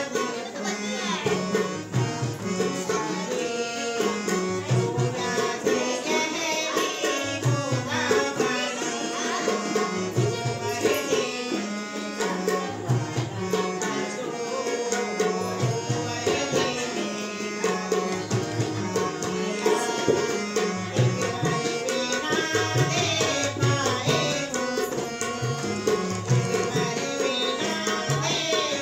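Harmonium and tabla playing together live, the tabla strokes keeping a steady rhythm under the harmonium's held chords, with a voice singing over them.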